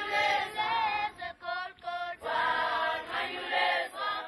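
A choir singing, several voices together in phrases with short breaks between them.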